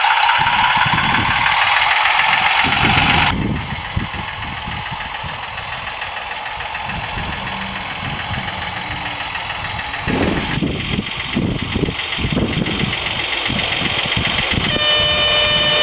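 Simulated diesel engine sound played by the sound card through the small speaker of a radio-controlled G-scale railcar as it runs. The sound drops sharply after about three seconds and carries on more faintly. Near the end a steady horn tone from the same sound unit begins.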